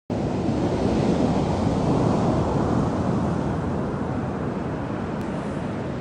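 Sea surf breaking and washing up a pebble beach: a steady rush of waves that swells over the first two seconds and then slowly eases off.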